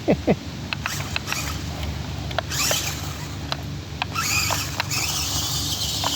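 Toy-grade RC crawler car driving over the ground: a steady low motor hum with short squeaks near the start, scattered clicks, and stretches of hiss.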